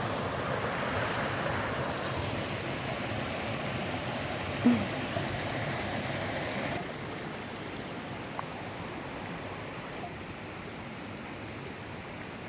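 Steady rushing of running water, like a mountain stream, which turns a little quieter and duller about seven seconds in.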